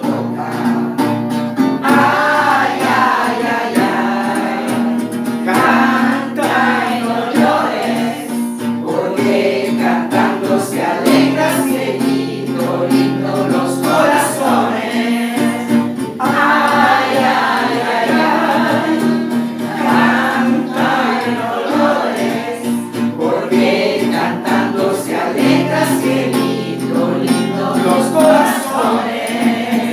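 A small group of men's and women's voices singing a song in Spanish together, accompanied by a classical acoustic guitar.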